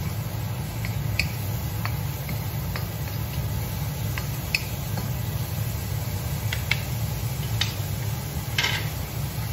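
Two wooden spatulas stirring and tossing sliced vegetables in a steel wok, with scattered light clicks and scrapes against the metal and a soft sizzle. A steady low hum runs underneath.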